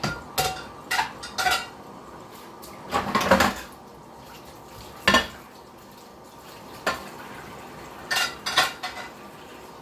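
Dishes and silverware clinking and clattering as they are handled and set down one piece at a time, in a string of separate knocks with a longer rattle about three seconds in and the loudest knock about five seconds in.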